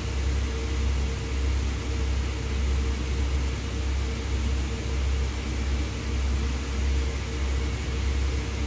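Steady low rumble of traffic on the highway below, heard from high above, with a constant hum over it and no sirens or sudden sounds standing out.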